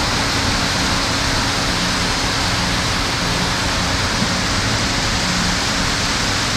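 Concrete mixer truck running steadily during a pour: a diesel engine hum under an even rushing noise as the drum turns and discharges concrete.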